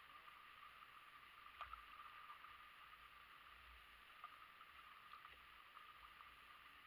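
Faint, steady trickle of shallow creek water around a kayak, with scattered light drips and ticks.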